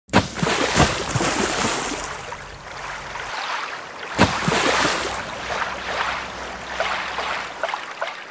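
Rushing, splashing water in two surges about four seconds apart, each starting suddenly and fading away.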